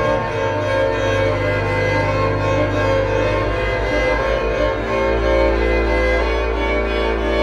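Church pipe organ holding slow, sustained chords with a string-like tone; the bass and lower notes change to a new chord about five seconds in.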